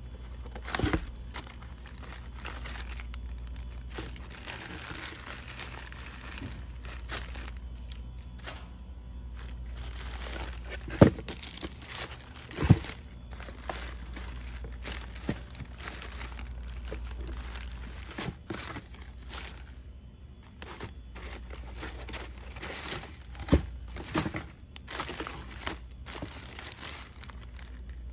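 Plastic mesh and poly bags of seed potatoes and onion sets, with paper seed packets, crinkling as they are handled and shuffled in a cardboard box. A few sharp knocks stand out: one about a second in, two close together around 11 to 13 seconds in, and one about 23 seconds in.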